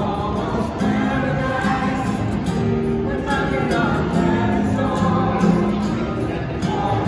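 A woman singing, accompanied by an acoustic guitar.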